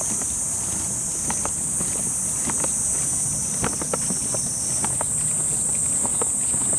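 Footsteps on sandy dirt, about two a second, over a steady, high-pitched drone of insects in the pine trees.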